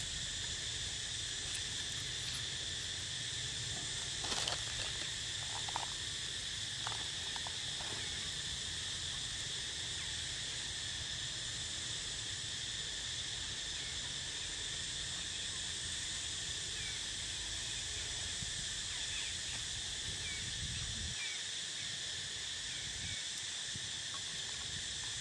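Steady, high-pitched drone of insects, unbroken throughout, with a few faint short squeaks and a light rustle or click in the first third.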